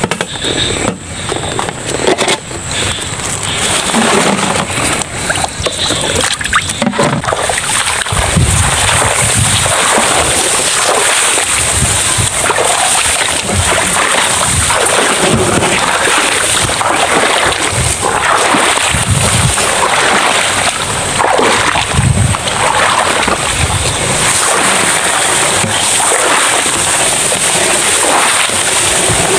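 Footsteps wading through waterlogged swamp grass: water splashing and sloshing underfoot with a low thud at each step, about once a second, and tall grass swishing past. Quieter handling noises in the first few seconds.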